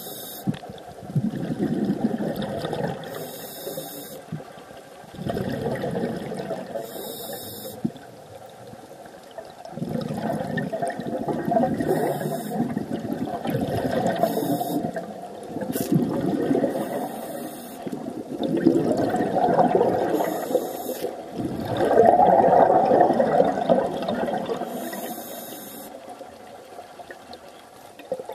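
Scuba regulator breathing heard underwater: a short hiss on each inhale, then a few seconds of bubbling as the exhaled air vents, repeating every few seconds.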